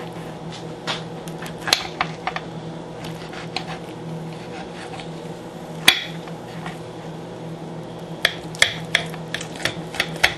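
Metal knife and fork clicking and scraping against a plate while cutting through a rack of BBQ pork ribs. There is a sharp clink about six seconds in and a quicker run of clicks near the end, over a steady low hum.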